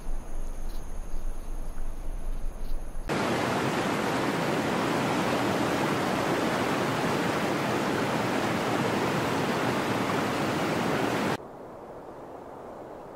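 Waterfall rushing, a loud even roar of falling water that starts abruptly about three seconds in and cuts off near the end, leaving a quieter low rush. Before it, faint steady high-pitched insect trilling.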